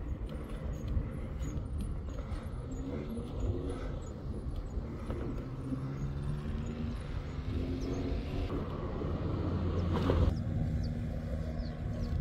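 A motor vehicle's engine running, its pitch stepping up and down several times.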